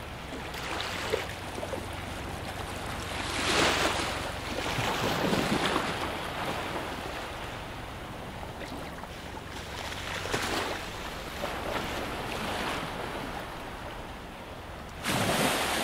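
Small sea waves washing in shallow water, swelling and easing every few seconds, with a louder wash near the end.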